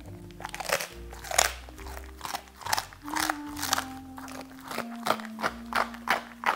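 A dog biting and crunching through a freeze-dried duck neck held in a hand: a quick, irregular run of sharp crunches, about three or four a second. Background music plays underneath.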